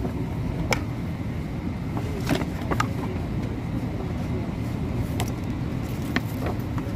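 Steady low rumble of an airliner cabin, with a few short sharp taps and rattles as a toddler handles a plastic-coated safety card.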